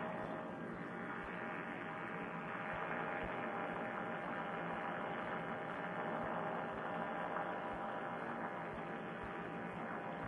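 Paramotor trike engine running steadily in flight: an even hum of engine tones that holds without change, sounding thin as if picked up through a headset microphone.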